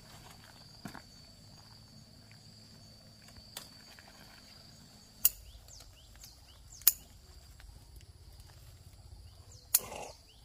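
Steady high-pitched insect drone outdoors, broken by sharp clicks or snaps: a couple of faint ones early, then three loud ones a second or two apart in the second half.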